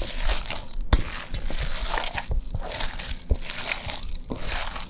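Hands kneading and mashing raw ground beef mixed with grated onion and spices in a bowl, an irregular working noise with a couple of sharp knocks, about a second in and again past three seconds.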